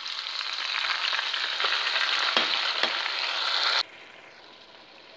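Chopped onion and tomato marinade hitting a hot pot of browned chicken drumsticks, sizzling loudly as it is scraped in, with two sharp knocks in the middle. The sizzle cuts off abruptly near the end, leaving a faint hiss.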